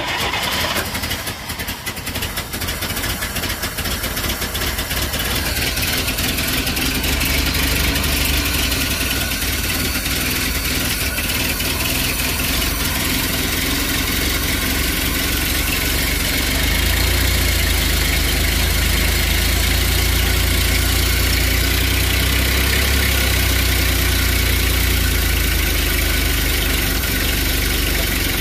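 Old Oldsmobile engine running steadily just after starting, heard close up from the engine bay; its low rumble grows somewhat louder a little over halfway through.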